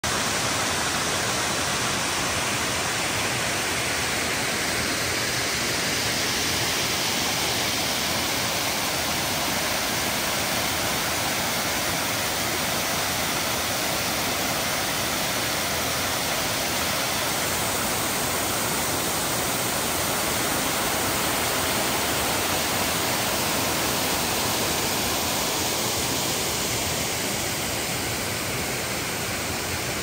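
Spring-fed waterfall, groundwater gushing out across a wide mossy rock face in many cascades and running over boulders below, rushing steadily. It is a little quieter near the end.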